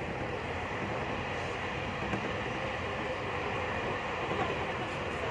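Passenger train running at speed, heard from inside the carriage: a steady running noise without separate knocks.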